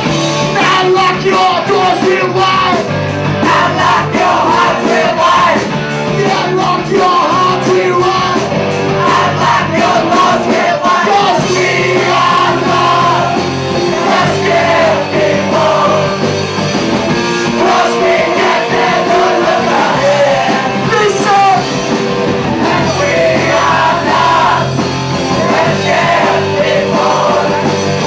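Live rock music: a band with steady bass notes, guitar and drums, and singing voices over it, with a busy cymbal pattern through the first ten seconds or so.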